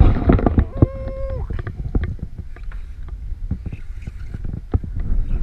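Wind buffeting the microphone as a steady low rumble, with scattered clicks and knocks and one brief held tone about a second in.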